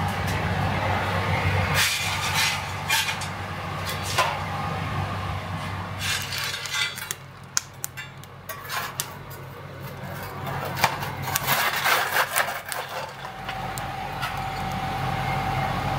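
Coal being handled and scraped at a blacksmith's forge: scattered clinks, knocks and scraping over a steady low hum. Near the end a steady higher whine sets in.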